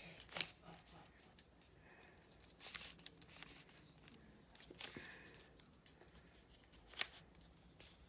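A stickerless 3x3 puzzle cube being turned by hand: a few scattered layer turns, each a short click or swish, the sharpest about seven seconds in.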